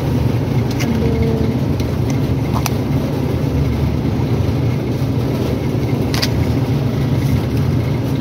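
Steady low rumble of supermarket background noise, with a few faint clicks.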